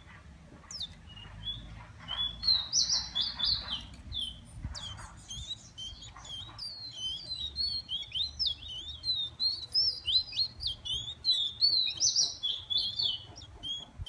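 Caged songbird singing a fast, continuous twittering song of short, high chirps and quick whistled notes, starting about a second in.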